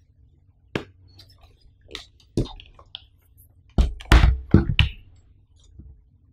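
Irregular knocks and thumps from handling, one near the start, a few around two seconds in, and the loudest cluster about four to five seconds in, over a faint low hum.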